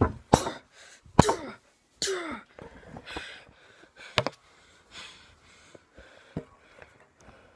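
Play-fight noises from children: short breathy grunts and shouts that fall in pitch, mixed with several sharp knocks and thumps, the loudest about a second in.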